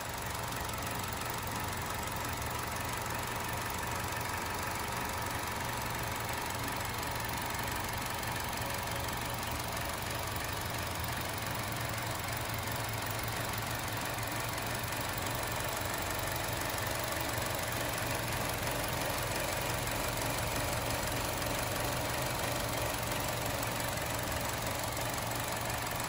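2012 Chevrolet Cruze's four-cylinder engine idling steadily, fitted with a newly installed Stigan turbocharger.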